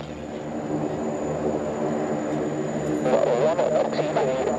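Aircraft engine running at a steady pitch. A louder, wavering sound joins about three seconds in.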